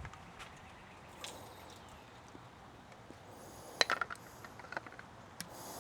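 Light clicks and taps of hose fittings and hose being handled, with a cluster of them about four seconds in and a short hiss near the end.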